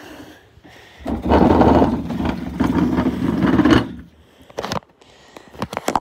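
Metal-legged patio table dragged across a tiled floor, scraping for about three seconds, followed by a few quick knocks.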